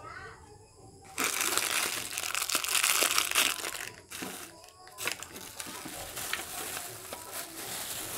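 Clear plastic bag crinkling as it is handled and pulled off a ring light. The crinkling starts loud about a second in, pauses briefly twice near the middle, and goes on with small clicks.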